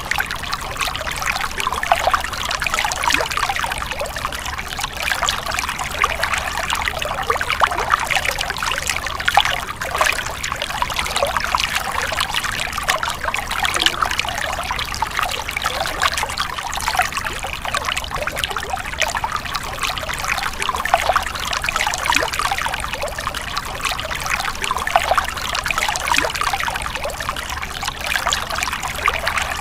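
Stream water splashing and trickling over rocks, a steady dense babble of small splashes.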